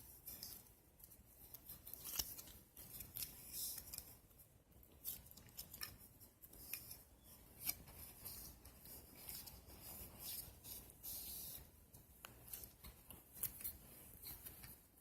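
Slime being squeezed and pulled by hand: irregular sharp clicks and little crackles, with short hissing squelches.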